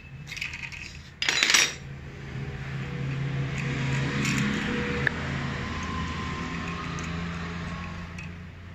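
Metal parts and tools clinking and rattling as a diesel fuel injector is handled and worked with a wrench, with one loud clatter about a second in, over a steady low hum.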